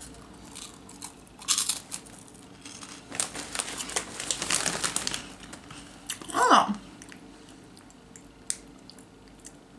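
Quiet chewing of a puffed corn snack stick, then a silver-lined plastic snack bag crinkling as it is picked up and turned, mostly between about three and five seconds in. A short vocal hum follows at about six and a half seconds.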